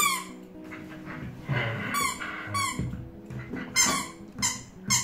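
Green bottle-shaped squeaky dog toy squeaking about six times as a Shetland sheepdog bites and squeezes it in its jaws.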